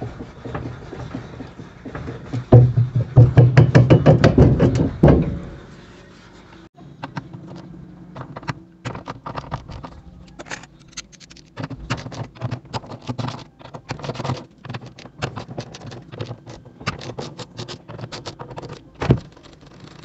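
Hand tools and metal parts being worked while an LG direct-drive washer motor is taken apart. A loud rapid rattling run with a low hum lasts a few seconds early on. Then come scattered clicks and rattles as the stator bolts are worked, and one sharp knock near the end.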